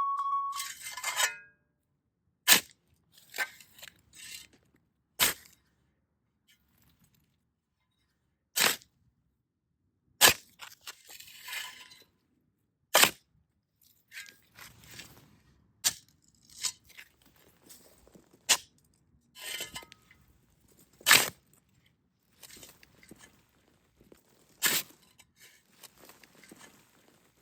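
Metal shovel digging into hard dirt: sharp clinks as the blade strikes soil, gravel and rocks, one every two to three seconds, with softer scraping and dirt being tossed aside in between.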